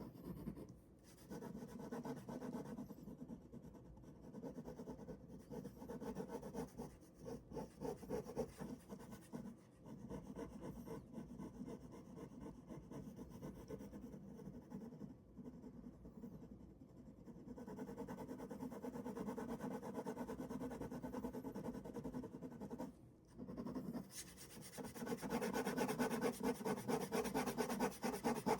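Ballpoint pen drawing on paper: continuous scratchy strokes. Near the end they turn into quick, even back-and-forth shading strokes, about four a second.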